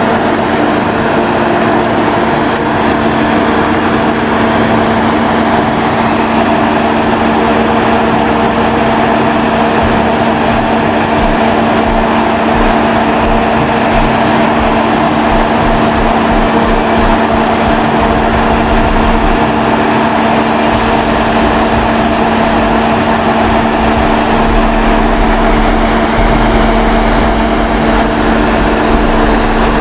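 Diesel engine of a British Rail Class 43 HST power car, an MTU V16, idling close by with a steady hum of several tones over a rumble. A deeper rumble comes in near the end.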